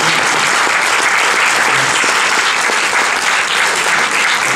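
Audience applauding: many hands clapping at once, a steady, loud clatter.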